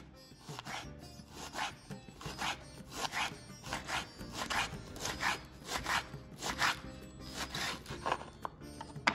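Kitchen knife slicing a cabbage wedge into thin shreds on a wooden cutting board, repeated cutting strokes about two a second. Quiet background music underneath.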